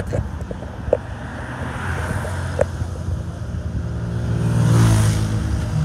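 A motor vehicle passing close on a highway: the engine hum grows louder to a peak about five seconds in, its pitch dropping as it goes by.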